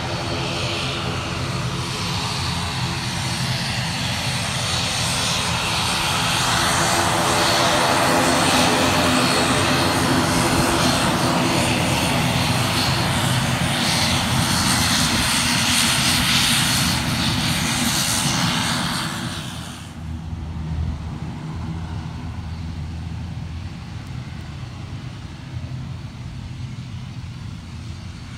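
ATR 42-600 twin turboprop taxiing at low power, its Pratt & Whitney PW127 engines and propellers giving a steady, droning hum that grows louder as the aircraft passes close by. About two-thirds of the way through, the sound drops suddenly to a quieter, more distant rumble.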